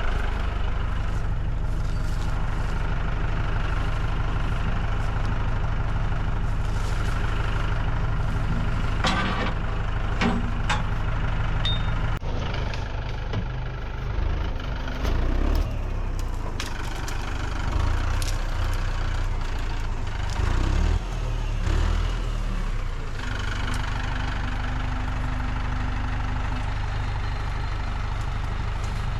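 Tractor engine running steadily, its note surging unevenly for a stretch in the middle as it takes and sheds load, with a few short metallic knocks about nine to eleven seconds in.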